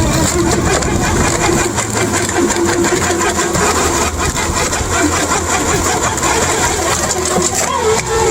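The engine of a heavy wood-processing machine running steadily under load, with a fast mechanical chatter.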